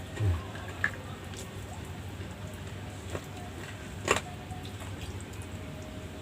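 A person chewing food close to the microphone in a mukbang, with a low thump just after the start, a short click about a second in and a louder sharp click about four seconds in.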